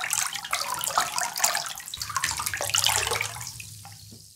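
Water sound effect of rushing, splashing water, a dense hiss with a low hum underneath, fading out over the last second or so.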